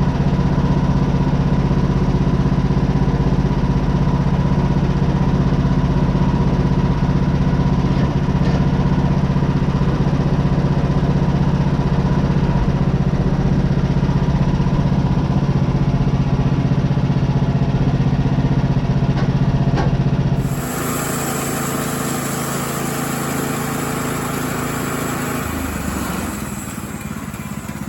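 Portable bandsaw sawmill's gas engine running steadily, with a strong low hum. About two-thirds of the way through, the sound changes abruptly to a quieter, hissier running, and it drops a little again near the end.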